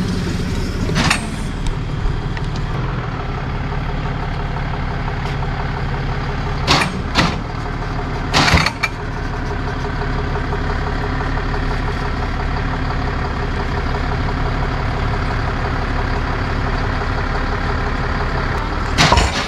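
Tow truck engine running steadily, with a few sharp knocks about a second in, twice around seven seconds, once at about eight and a half seconds and once near the end.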